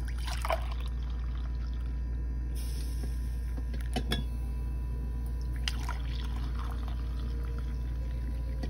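Coffee poured from a coffee-maker carafe into a mug, over a steady low hum, with a few light knocks about half a second, four seconds and nearly six seconds in.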